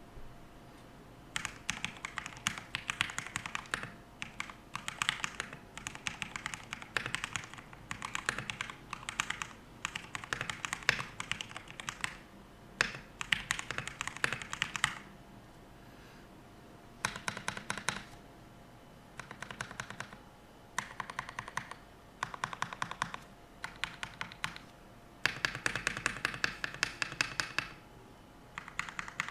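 Redragon K631 mechanical keyboard being typed on in bursts of rapid keystrokes, with short pauses between runs. Its Huano Red linear switches are thinly lubed, with PBT XDA-profile keycaps and foam damping inside the case.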